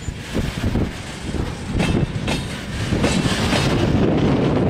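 Freight train of grain hopper wagons rolling past on broad-gauge track: a steady wheel-on-rail rumble with repeated clicks and knocks as the wheels pass over rail joints, growing louder about three seconds in.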